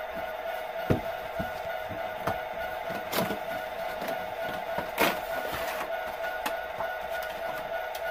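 Cardboard boxes and plastic model train cars being handled: a few sharp knocks, with a louder scraping rustle about five seconds in, over a steady hum from a model SD70 diesel locomotive idling on the track.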